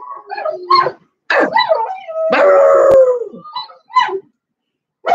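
Young dog howling in a run of short, wavering yowls, with one longer howl about two seconds in that drops in pitch at its end.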